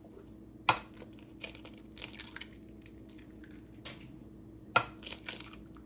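Eggs being cracked on the rim of a glass mixing bowl: a sharp tap about a second in and another near the end, with small crackles of shell between them.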